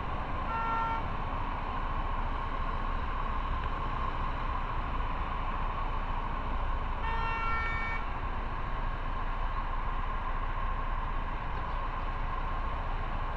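Steady wind and road noise of a motorcycle ride, with a vehicle horn honking briefly about half a second in and again for about a second around seven seconds in.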